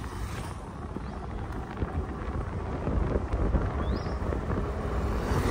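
Wind rushing and buffeting over the microphone of a moving scooter, with road and vehicle noise underneath; the gusts grow louder toward the end.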